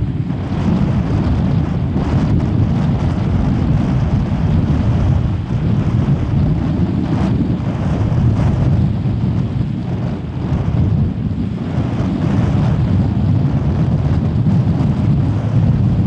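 Strong gusty wind blowing across the microphone: a loud, uneven low rumble that swells and eases from moment to moment.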